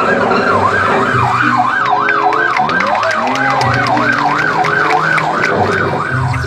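Police siren sweeping up and down in pitch about twice a second, steadily throughout.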